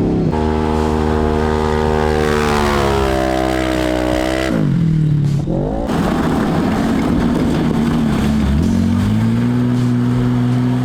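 Side-by-side engine driven hard: the revs climb about two seconds in, fall away sharply with a quick rise again around the middle, dip briefly near the end and then hold steady.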